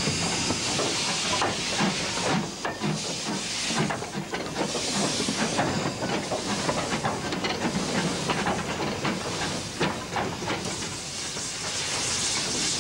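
Small 0-6-0 metre-gauge steam tank locomotive shunting slowly: a continuous hiss of escaping steam, with irregular clanks and clicks from the engine and the wagons it is moving.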